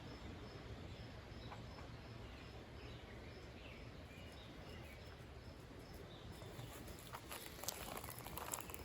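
Quiet outdoor evening ambience: an insect chirping faintly in a regular rhythm about twice a second, with faint bird calls. Footsteps and rustling on the dirt trail come in near the end.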